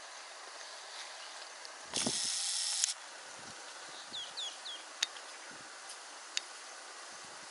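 Open-air background with a loud, harsh hissing rasp of just under a second about two seconds in. After it come three quick hooked bird chirps and two sharp clicks.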